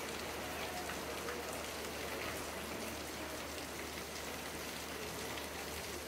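Steady, even hiss of background noise, like rain on a surface, with no distinct knocks or voices standing out.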